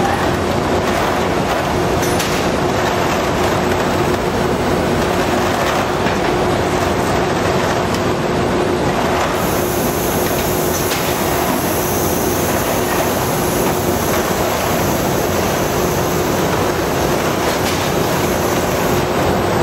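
Steady machinery din of a robotic layer depalletizing cell, with conveyors and industrial robot arms running, a rattling clatter and a faint steady hum tone. A high hiss joins about halfway through.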